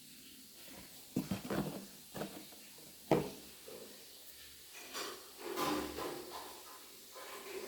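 Hand-handling noises of a Stanley Quick Flip insulated bottle: rubbing and a quick run of small clicks and taps, then one sharp click about three seconds in, and more rubbing and knocking later.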